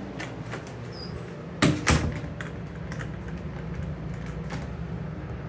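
A restroom door being handled: small clicks and two loud knocks in quick succession about a second and a half in, over a steady low hum.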